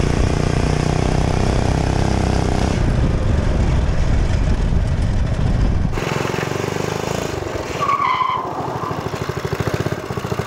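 A minibike's small engine running hard, heard close up from the bike, then after a sudden cut a few seconds in heard farther off. About eight seconds in there is a brief high squeal, and near the end the engine drops to an idle with each firing pulse distinct.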